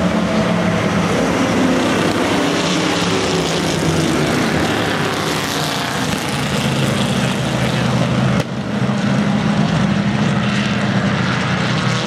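Several historic sports-racing car engines running together at moderate revs, a steady multi-engine drone with a brief break about eight seconds in.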